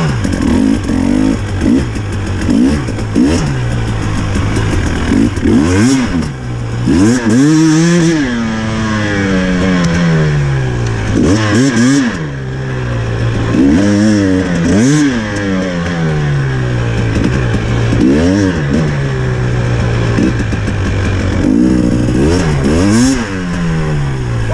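Dirt bike engine ridden off road, revving up and dropping back about ten times as the rider works the throttle, over a steady low engine note.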